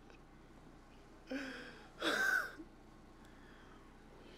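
A man's breathy gasps of laughter, twice, the second louder and sliding in pitch.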